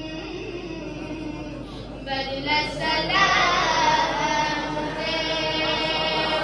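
A boy singing a devotional chant into a microphone, drawing out long held notes, growing louder about two seconds in.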